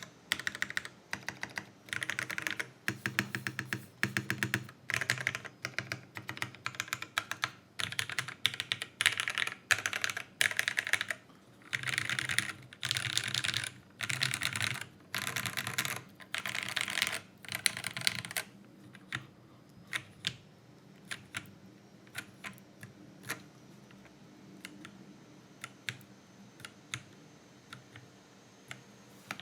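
Geonworks Frog TKL mechanical keyboard being typed on: lubed Cherry MX Black linear switches on an aluminium plate, with thick PBT keycaps. Fast bursts of typing give way, about two-thirds of the way through, to single keystrokes with pauses between them.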